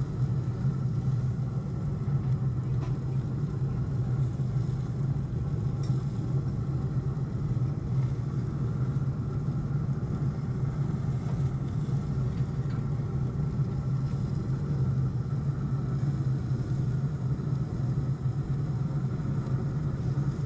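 Pit Boss pellet grill running: a steady low hum from its fan, unchanging throughout.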